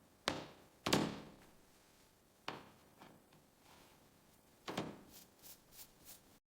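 A series of hard knocks and thunks, the loudest about a second in and a double knock near the fifth second, followed near the end by four quick, light, high-pitched clicks.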